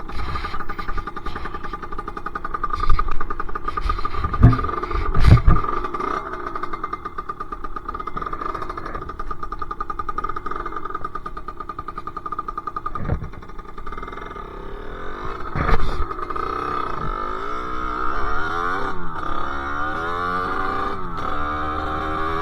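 Sherco SM-R 50's 50cc two-stroke engine with a KRM exhaust running steadily, then revved up and down repeatedly in the last six seconds. Several loud knocks come a few seconds in and another about 16 s in.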